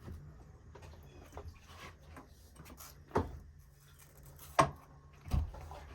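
Knocks and clunks from handling the motorcycle and tools while the oil drains, three louder ones about three, four and a half and five and a half seconds in, over a low steady hum.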